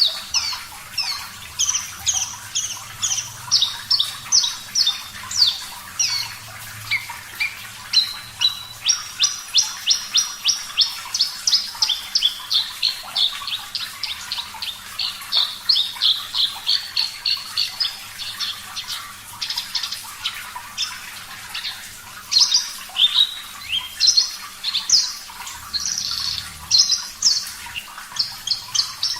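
Javan bush lark (branjangan, parva race) singing a long, near-continuous song of short, quick, high chirping notes, several a second, with changing phrases and barely a pause.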